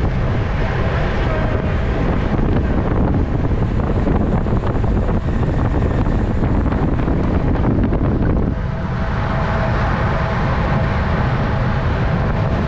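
Wind rushing loudly over the microphone of a camera riding on a racing bicycle at speed. About two-thirds of the way through the noise changes character and a faint steady hum comes in.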